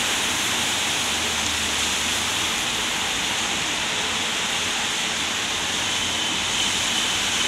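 Steady rain falling on the pavement and wet road, an even hiss that stays constant throughout.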